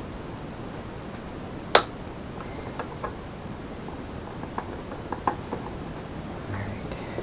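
Hands handling the wiring and plastic parts inside a mobility scooter's front panel: one sharp click about two seconds in, then a string of lighter clicks and ticks, over a steady hiss.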